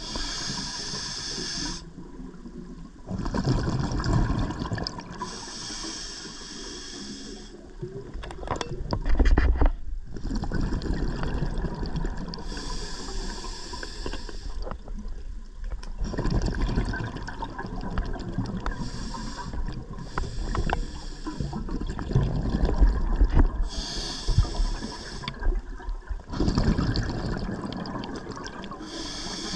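Scuba diver breathing through a regulator underwater: a hissing inhale about every five or six seconds, each followed by a low burst of bubbling exhaust.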